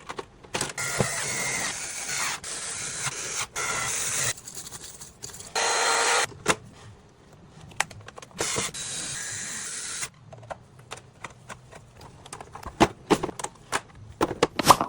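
Three bursts of blown air hissing, the longest about three and a half seconds, while dust is cleaned out of a PlayStation 5, followed by a run of small sharp clicks and taps of parts and tools being handled.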